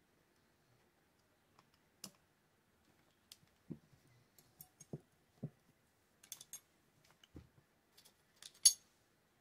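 Scattered clicks and light knocks of small metal parts, screws and screwdrivers being handled while a Shimano TLD 30 fishing reel is put back together. There are a few duller knocks in the middle and a sharp click near the end, the loudest sound.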